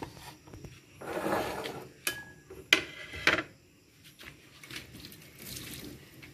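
Dishes being handled on a tiled kitchen counter: a plate and bowl shuffled about, then three sharp knocks and clinks in quick succession, the second the loudest.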